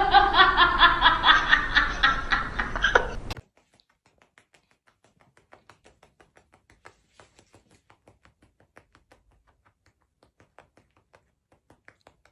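A person laughing hard in quick pulsing bursts, about five a second, that cut off suddenly a little over three seconds in. Only faint scattered clicks follow.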